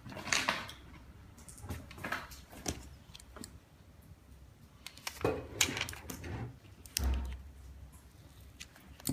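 Handling noise: clear plastic film rustling and light clicks and knocks as an LCD screen and a hand roller are handled on a cutting mat, with a dull thump about seven seconds in.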